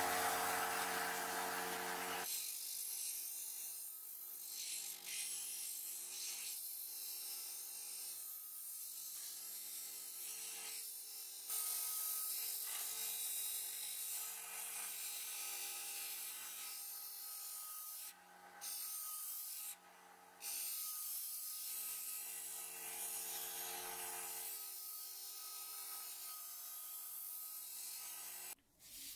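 Benchtop disc sander running with a rusty steel meat cleaver pressed against its sanding disc: a steady gritty hiss of steel being ground, over the motor's hum. The grinding breaks off briefly twice about two-thirds of the way through, and stops just before the end.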